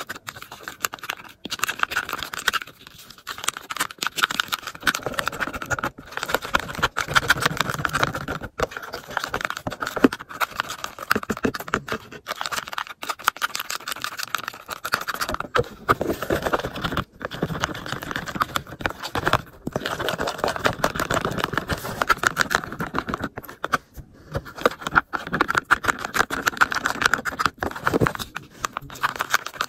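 Plastic stirring stick scraping and clicking against a plastic tub as it whips body wash and torn cardboard pieces, the stage of mixing it until it turns bubbly and thick. A fast, unbroken run of small scrapes and ticks, with a few brief breaks.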